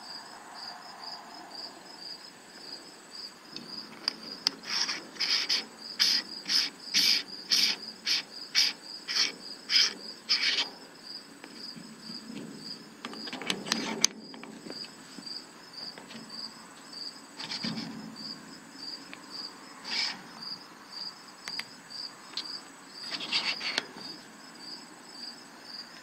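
Metal parts of a telescope finder being handled and screwed together by hand: a run of regular clicks, about two a second, from about four to ten seconds in, then a few scattered knocks. A cricket chirps steadily and evenly throughout.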